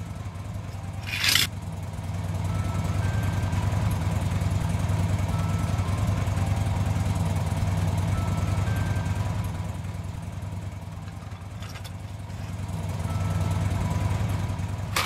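Steady low vehicle-engine rumble, an engine sound effect for a toy vehicle being driven along a playset, swelling and easing slowly. A short hiss comes about a second in and again at the end.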